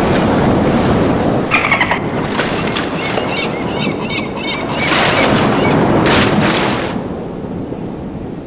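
Ocean sound effects from an immersive show's soundtrack: steady rushing surf, with a run of short chirping animal calls about three to four seconds in and two loud surges of rushing water near five and six seconds.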